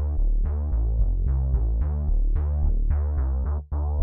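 Electronic background music: a deep, stepping bass line under a steady rhythm of short, quickly fading synth notes, cutting out for an instant near the end.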